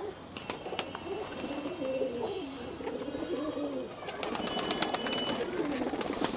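Domestic pigeons cooing over and over, several birds overlapping, in a flock feeding on the ground. A run of sharp clicks comes in over the last two seconds.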